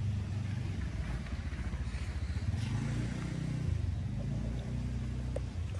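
Two-stroke Kawasaki Ninja 150 engine with a PWK 32 carburettor in a trail-bike build, running steadily at idle.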